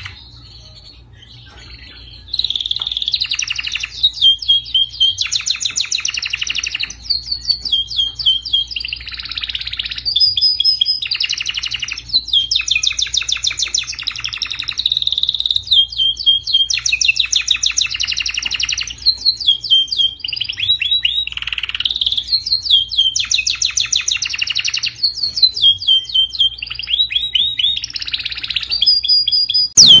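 Domestic canary singing a long song of fast trills and rolling phrases, broken by short pauses, starting about two seconds in. It is a tutor song played to teach canaries to sing.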